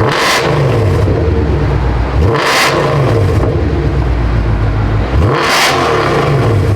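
Mercedes W204 C63 AMG's 6.2-litre V8, running catless on headers through a Valvetronic exhaust with its valves open, revved hard three times, about two and a half seconds apart, each rev falling back toward idle.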